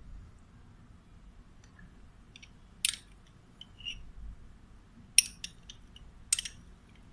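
Metal spoon clinking against a small glass jar and glass dish as mayonnaise is scooped out: three sharp clinks, about three, five and six seconds in, with lighter ticks between.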